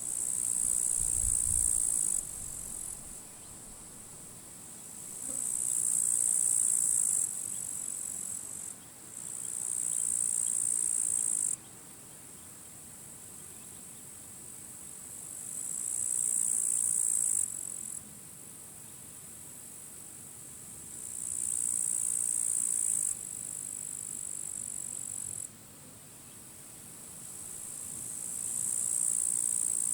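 Grasshoppers stridulating in dry grass: high, buzzing trills in about six bursts of two to three seconds each, several swelling and then stopping abruptly. Wind hiss runs underneath, with a brief low rumble of wind on the microphone near the start.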